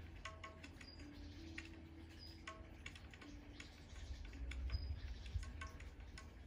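Faint, irregular light clicking, with soft sustained notes of slow background music and a low rumble underneath.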